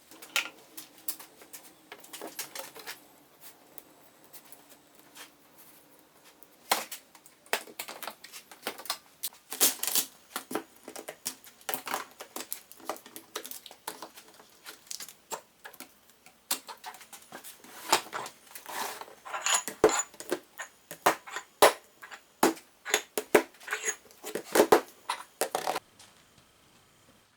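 Irregular light clicks, taps and knocks, as of small hard objects being handled and set down on a wooden work surface, coming thicker in the second half.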